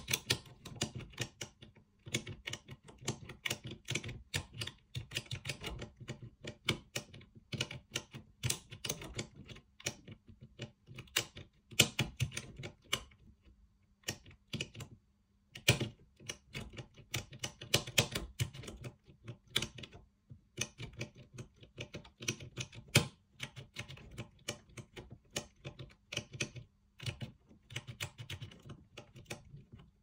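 Lever pick and tension wrench working inside a Union J2201 five-lever mortice sashlock. The pick is worked back and forth to lift the levers up against their fences toward the true gates. It makes rapid, irregular clicking and ticking, broken by a few short pauses.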